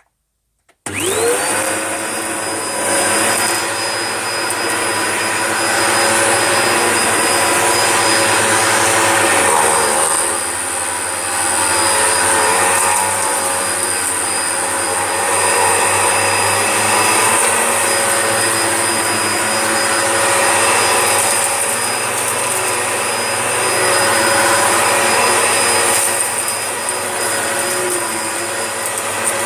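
Dyson DC01 upright vacuum cleaner switched on about a second in, its motor winding up within a second to a steady high whine, then running on with the sound swelling and easing slightly.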